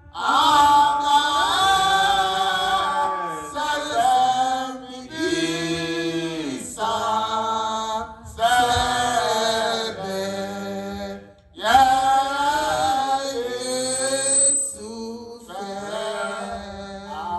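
A slow, chant-like song sung in long drawn-out phrases, with short breaks between phrases about a third, a half and two thirds of the way through. A sustained low note runs underneath.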